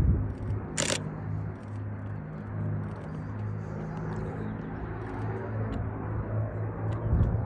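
Second World War fighter's V12 piston engine droning steadily, with a sharp click about a second in.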